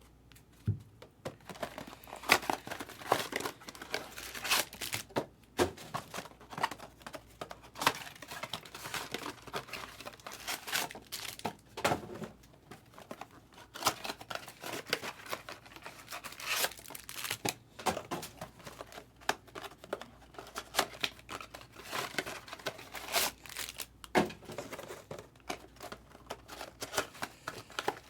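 Baseball card pack wrappers being torn open and crinkled, with a steady irregular crackle of handled wrappers.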